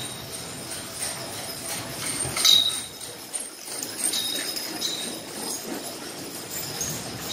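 Harness hardware on a Percheron draft team jingling and a wooden wagon rattling as the team passes close. The loudest metallic clink comes about two and a half seconds in, with more clinks around four and five seconds.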